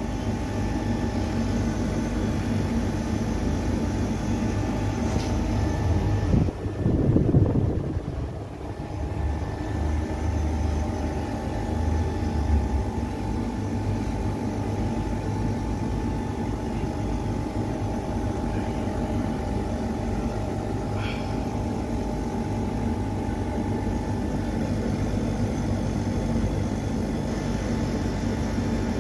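Split air-conditioner outdoor unit running steadily, its compressor and condenser fan humming while it cools, the refrigerant pipe already cold. A brief rustling bump about seven seconds in.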